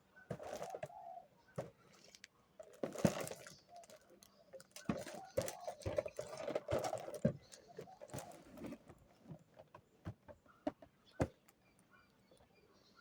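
Perfume gift-box packaging being handled and opened: cardboard sliding and rubbing, with scattered taps and clicks.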